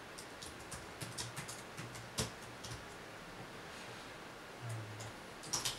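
Computer keyboard keystrokes: a quick, irregular run of soft key clicks through the first half, then a few more near the end.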